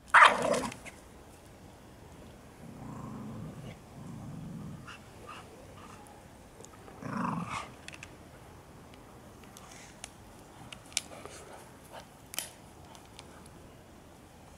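Dogs growling at each other in rough play: a loud snarl right at the start, two low growls around three and four seconds in, and another growl a little after seven seconds, with small clicks in between.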